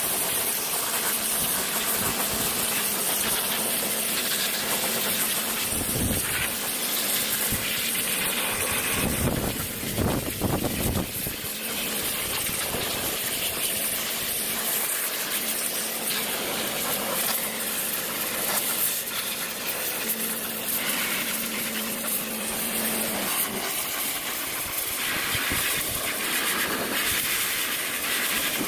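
Steady loud hiss of a water spray cleaning a washing machine's wash tub, with a few low knocks about 6 and 10 seconds in.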